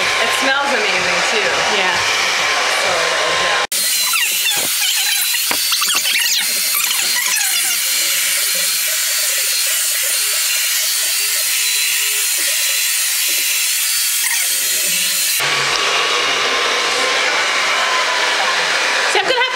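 Handheld ionic hair dryer blowing steadily. It cuts out for an instant about four seconds in, then sounds thinner and hissier until it fills out again a few seconds before the end.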